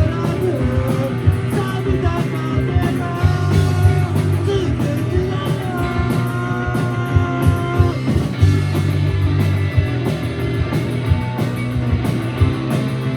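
A rock band playing live: electric guitars, bass and drums, with a wavering melodic line on top.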